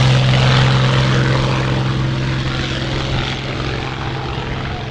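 Piston engines of a Second World War propeller aircraft droning steadily overhead, gradually fading as it moves away.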